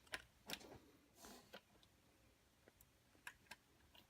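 Faint, scattered clicks and ticks of a small screwdriver and screw being worked into a scale-model crane's parts, a few sharp ones in the first second and a pair a little after three seconds.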